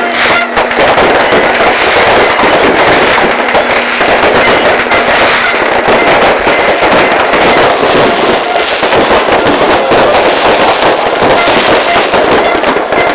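New Year fireworks going off in a dense, near-continuous barrage of bangs and crackles, very loud throughout with no break.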